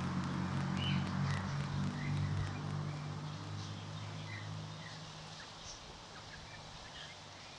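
Young chickens peeping and giving short soft calls as they forage, over a low steady hum that fades away about five seconds in.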